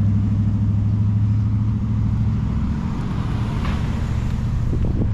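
A large engine running steadily with a constant low hum. A short hiss comes about three and a half seconds in.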